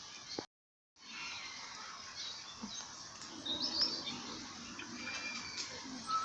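Several birds chirping and whistling in the background, short high calls scattered over a steady hum of ambience. The sound cuts out completely for about half a second near the start.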